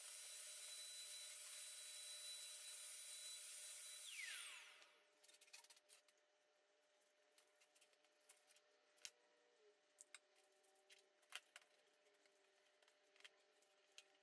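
Vacuum cleaner running with a steady high whine over its hiss, then switched off about four seconds in, the whine falling as the motor spins down. After that, faint rubbing and light clicks of a cloth wiping a graphics card's plastic fan shroud.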